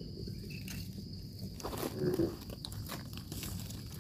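Faint crunching and crackling of dry fallen leaves being stepped on and handled, with a cluster of crunches about halfway through.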